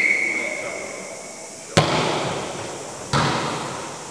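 A referee's whistle blast trailing off and stopping about a second and a half in, then two sharp hits of a volleyball, about a second and a half apart, each echoing in the sports hall: the serve and the return.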